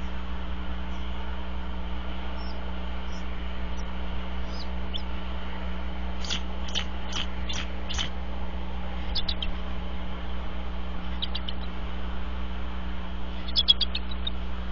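Bald eagle calling from its nest. It gives a run of five sharp, high chirping notes about six seconds in, then short bursts of quick chirps near nine and eleven seconds and a louder burst near the end. A steady low electrical hum runs underneath.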